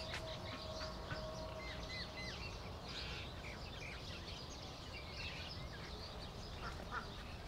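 Small birds chirping, with short repeated notes scattered through, including a quick run of three alike notes about two seconds in, over a steady low background noise.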